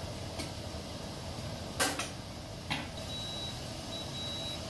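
A few sharp clicks, the loudest about two seconds in, then from about three seconds in a rice cooker beeping in a repeating pattern of high-pitched pulses, signalling that the rice is cooked.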